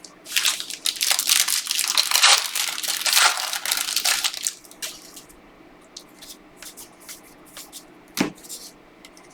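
A trading-card pack wrapper torn open and crinkled for about four seconds, followed by scattered light clicks and flicks of cards being handled.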